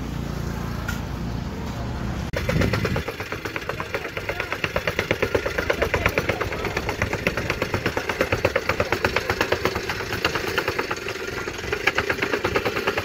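A steady low engine hum, then, after an abrupt change about two seconds in, a small engine-driven construction machine running with a fast, even pounding.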